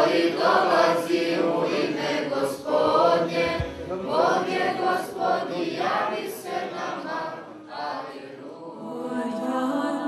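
Church choir singing Serbian Orthodox liturgical chant. About eight seconds in the chant gives way to music of long held notes.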